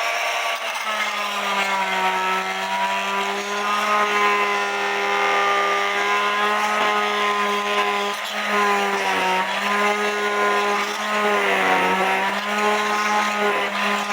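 Oscillating multi-tool (Master Mechanic universal tool) running with its blade vibrating back and forth, a steady buzzing hum. Its pitch sags briefly about nine seconds in and again around eleven to twelve seconds in, as the blade is loaded cutting at the glued bellows tube in the wooden clock case.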